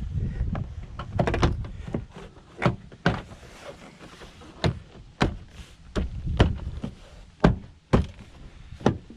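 Car door trim panel and its wiring being handled and fitted against the door: a string of irregular knocks, clicks and thunks.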